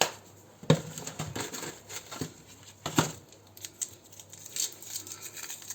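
Cooking prep handling noises: a sharp knock at the start, another just under a second in and a loud one about three seconds in, among scattered light clicks and scrapes.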